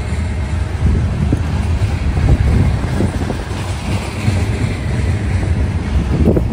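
Covered hopper cars of a freight train rolling past: a steady, loud low rumble of steel wheels on rail, with irregular clacks as the wheels cross rail joints.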